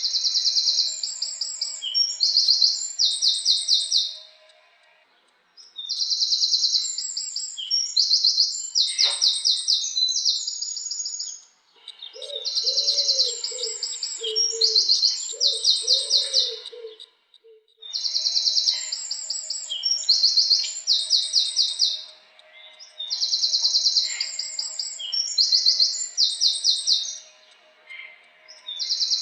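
A wren singing repeatedly: loud phrases of about four to five seconds, each a quick run of high trills and rattles, with short pauses between them. In the middle a lower series of short notes sounds under the song.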